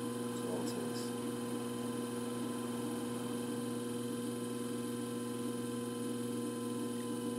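Electric potter's wheel motor running at a steady speed, a constant even hum with a few steady tones layered in it.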